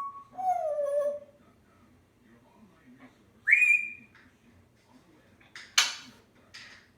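African grey parrot whistling: a falling whistle near the start, then a louder rising whistle held briefly about three and a half seconds in, followed by two short harsh noisy sounds near the end.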